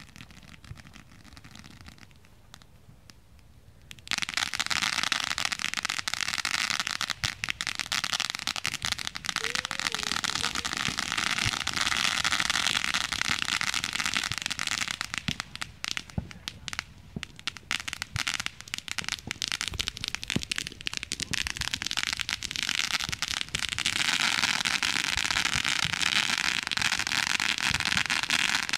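Ground fountain firework spraying sparks, starting suddenly about four seconds in with a dense crackling hiss full of sharp pops. The crackle thins to scattered pops about halfway through, then builds back to a steady crackling hiss near the end.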